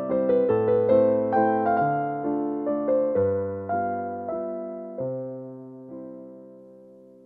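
Background piano music: a gentle melody of single notes over chords, each note dying away after it is struck. About five seconds in, a last chord is struck and left to fade.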